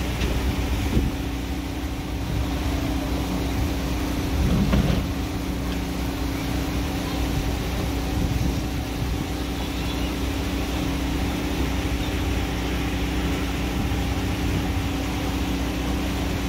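Motorboat engine running with a steady hum over rumbling water and wind noise, with one brief louder knock about five seconds in.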